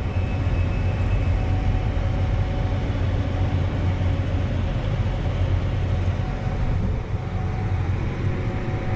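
Tractor engine running steadily while pulling a grain cart across a field: a constant low drone with a faint steady whine above it.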